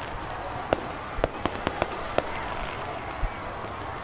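Aerial fireworks going off: about eight sharp pops and bangs at irregular intervals over steady outdoor background noise.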